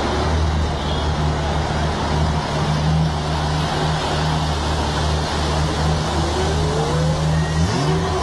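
Pagani Zonda R's V12 engine idling steadily, then revved near the end, its pitch rising and falling.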